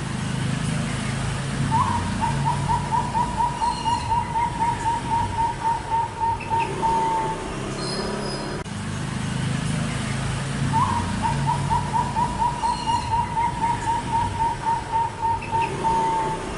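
Zebra dove (perkutut) cooing: a long run of quick, even staccato notes at about four a second, opening on a slightly higher note. The run is given twice, starting about two seconds in and again about eleven seconds in, each lasting about five and a half seconds.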